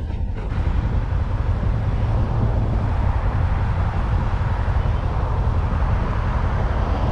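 Motorcycle riding in slow traffic: a steady low rumble of the engine mixed with wind buffeting on the microphone.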